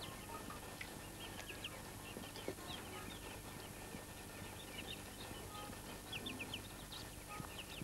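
Muscovy ducklings peeping: many short high peeps, scattered irregularly.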